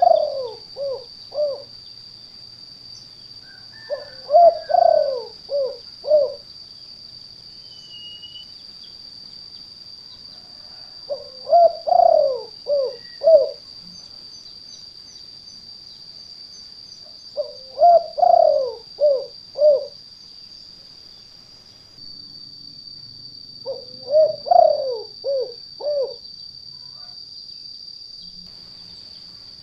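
Spotted dove (tekukur) giving its cooing call, the two-part "kuk 2" type used as a lure: five phrases of several short coos each, a phrase about every six seconds. A steady high-pitched whine runs underneath.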